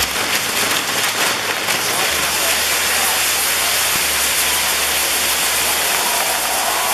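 Ground fireworks burning, the fountains of a firework wheel giving a steady, dense hiss with a fine crackle.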